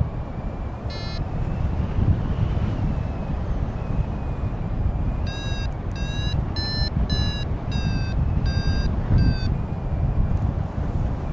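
Wind buffeting the microphone as a steady low rumble, with a single electronic beep about a second in and then a run of seven evenly spaced electronic beeps, roughly one and a half a second, between about five and nine seconds in.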